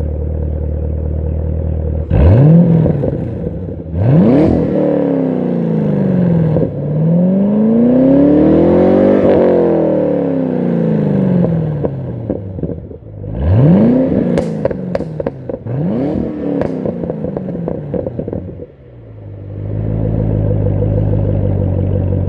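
A stock 2013 Camaro ZL1's supercharged 6.2-litre V8 idling, then revved: two quick blips, a longer rev that climbs and falls back, two more blips with crackles on the overrun, then it settles back to a steady idle.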